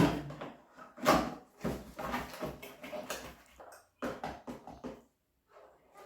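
Cardboard box and packaging of a light kit being handled and unpacked: a run of irregular knocks and rustles, the loudest near the start and about a second in.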